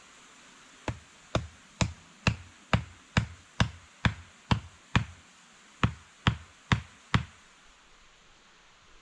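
About fourteen sharp wooden knocks, roughly two a second, with a short pause before the last four: a wooden baton striking wood.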